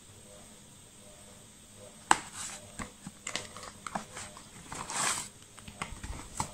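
Cardboard product box being opened by hand: a sharp snap about two seconds in, then scattered clicks and rustling of cardboard and paper as the contents are slid out.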